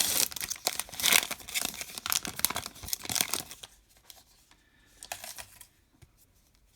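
Baseball card pack wrapper being torn open and crinkled by hand for about three and a half seconds, then only faint rustles of handling.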